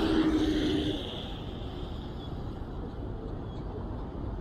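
Street traffic on a wet city road: a vehicle passes with a steady hum and tyre hiss in the first second, then fades into a steady low traffic rumble.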